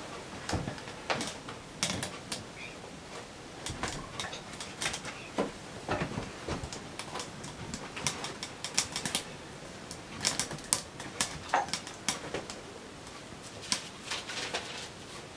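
Scattered light clicks and taps at irregular intervals, like small objects being handled.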